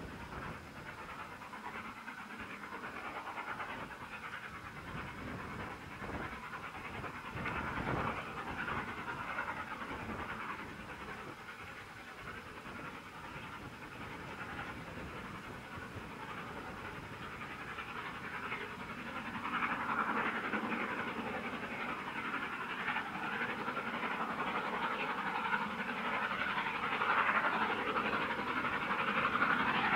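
LNER V2 2-6-2 steam locomotive 60800 Green Arrow working a passenger train, its three-cylinder exhaust chuffing steadily and growing louder as the engine approaches.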